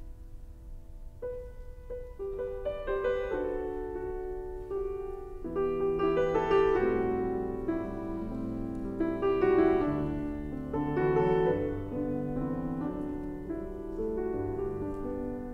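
Background piano music: a melody of sustained notes, with lower notes coming in about five seconds in.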